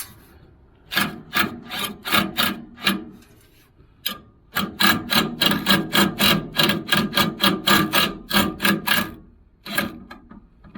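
Ratchet wrench worked back and forth, tightening a cable nut on a battery terminal stud: a few slow strokes, then a quick run of about four rasping strokes a second.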